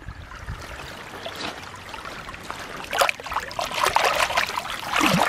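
Shallow stream water trickling, then from about three seconds in, louder splashing as a muddy toy figure is rinsed by hand in it.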